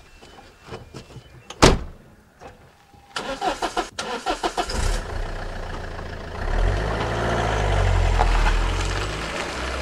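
A car door slams shut once, then the starter cranks in a quick, even run of pulses for about a second and a half until the engine catches. The petrol car engine then runs steadily and revs up and down.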